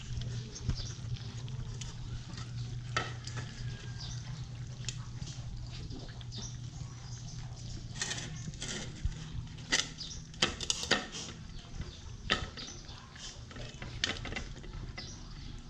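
A litter of one-month-old Belgian Malinois puppies eating together from a metal bowl: a continuous crackle of chewing and lapping, broken by sharp clinks and knocks against the dish. The knocks are loudest around ten seconds in, and a steady low hum runs underneath.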